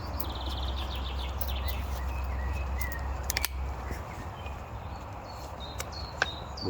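Woodland birds chirping in short repeated notes, with a few sharp clicks about a second and a half and three and a half seconds in. A low rumble underneath fades out about four seconds in.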